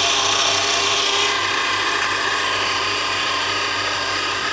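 Electric kitchen machine with a mincer attachment running steadily, grinding candied chestnuts into purée: a continuous motor hum and whine.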